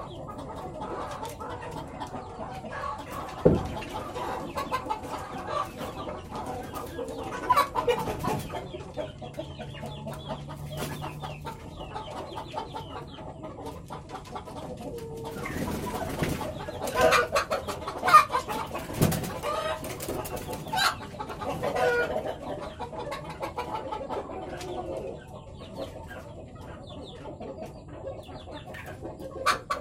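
Village chickens clucking on and off, with several sharp knocks, the loudest about three and a half seconds in and about eighteen seconds in.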